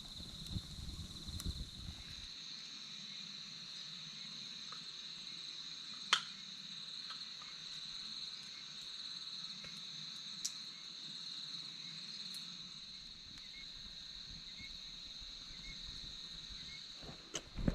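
Steady, unbroken high-pitched insect chorus. Some low rustling in the first two seconds, a single sharp click about six seconds in, and a few knocks at the very end.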